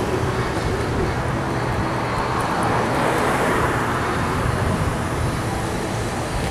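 Steady road traffic noise that swells and fades again about halfway through, like a vehicle passing.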